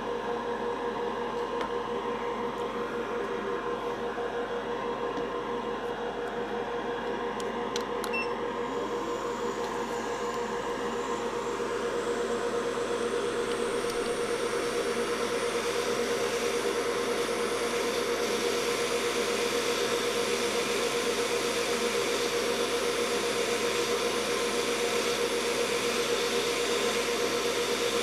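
Hot air rework station blowing a steady stream of air onto a flash drive's controller chip to loosen its solder, over a constant fan hum. The rushing air grows louder a little under halfway through, and a few light clicks come about a third of the way in.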